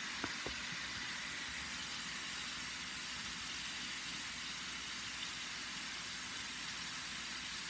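Chicken pieces frying in hot oil and browned curry in a pot: a steady, even sizzle, with a couple of faint ticks just after the start.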